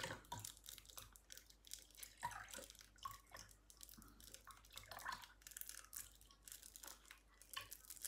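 Faint trickling of milk pouring from small cut-open paper cartons into a plastic jug, with light rustling and clicking as the cartons are handled.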